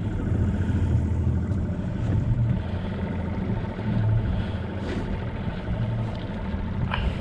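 Tohatsu outboard motor idling with a steady low hum.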